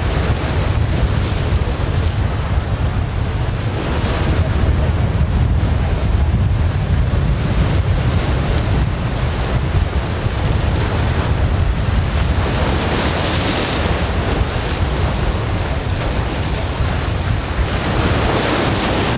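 Wind buffeting the microphone: a loud, steady rumble with a rushing hiss that swells a few times.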